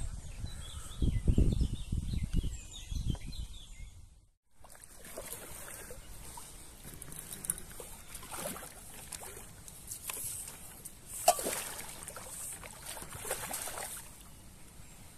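Low rumbling thumps of handling on the microphone for the first few seconds. After a short break, pond water sloshing and splashing with many small irregular splashes as a landing net is worked in the water at the bank.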